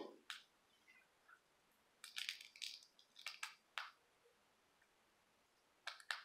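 Dried gold paint skin crackling as fingers peel it from the wells of a plastic palette, in short runs of crisp crinkles: a busy run about two seconds in, a few more around three and a half seconds, and another brief burst near the end.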